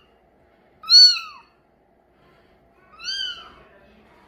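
Mink Bengal kitten mewing twice: two short, high-pitched mews, each rising and then falling in pitch, the second one quieter.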